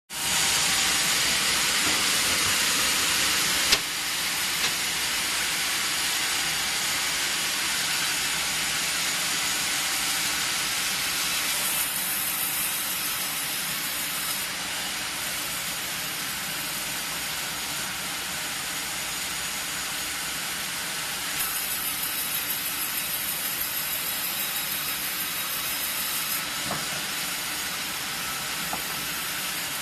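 Vertical log band sawmill with a 22 kW main motor running: a steady, loud, high hiss of blade and machinery. The loudness drops suddenly about four seconds in, and two later stretches bring a sharper, higher hiss as the blade works the log.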